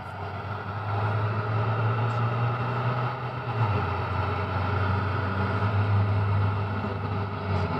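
Motor vehicle engine running nearby: a steady low hum with a noisy rumble that builds over the first second and falls away near the end.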